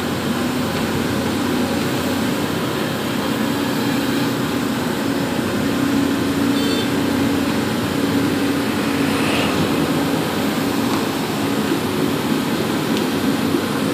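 Pindad Excava 200 excavator's diesel engine running steadily under load, with a droning tone that wavers slightly in pitch, as the boom lifts and swings a bucket full of mud.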